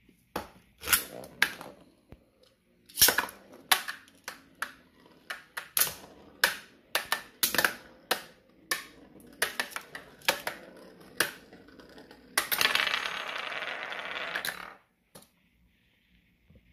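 Two Beyblade spinning tops clashing in a shallow metal pan: an irregular run of sharp clicks and clinks, about one or two a second, as they strike each other and the rim. About twelve seconds in comes a continuous rasping scrape lasting about two seconds, which cuts off as the spinning ends.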